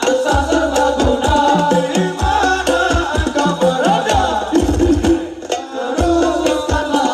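Hadroh music (Islamic devotional singing over hand-drum percussion) played loud through a PA speaker stack, a horn-loaded top cabinet on a bass cabinet, as a sound check of newly replaced drivers. Deep bass drum hits come in rhythmic clusters under the sung melody.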